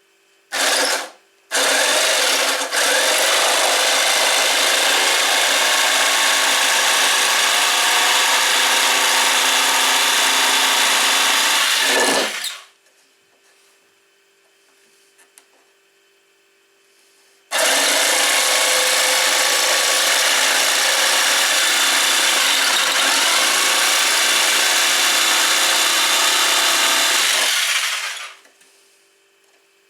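A power tool running and working wood: a brief burst, then two long steady runs of about ten seconds each, each ending suddenly.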